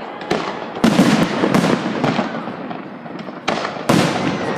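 Fireworks salute: a rapid series of sharp bangs, about five, each followed by a rolling echo.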